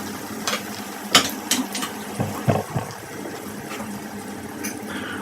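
Chicken kachoris deep frying in hot oil, a steady sizzle broken by a few sharp clicks and pops in the first couple of seconds.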